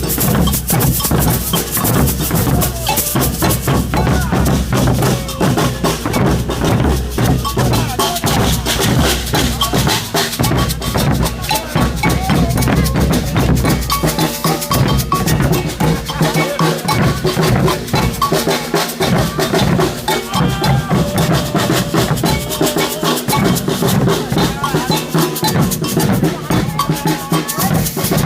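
A street percussion group playing a steady rhythm on drums and other hand percussion, with voices singing over it. The deep drum strokes are strongest in the first half and lighten in the second.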